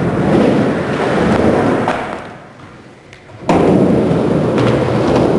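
Skateboard wheels rolling, fading away about two seconds in, then a sudden loud clack about three and a half seconds in as the rolling starts up again.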